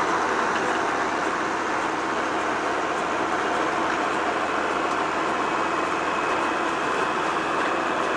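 Farm harvest machinery running steadily, an even mechanical noise that holds the same level throughout.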